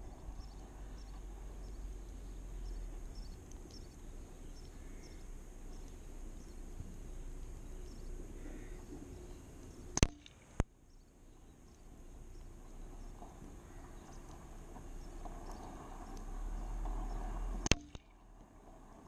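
Two shots from a moderated .177 FX Dreamline PCP air rifle, each a sharp crack, about ten seconds in and again near the end, eight seconds apart; a smaller click follows the first shot about half a second later. Low wind rumble on the microphone runs between them and swells before the second shot.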